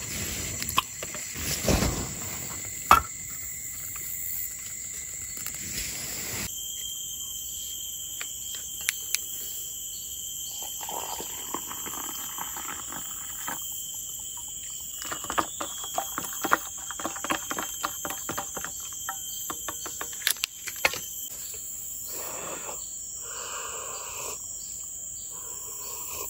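Forest ambience dominated by a steady, high-pitched drone of insects, with scattered clicks and knocks from handling things close by.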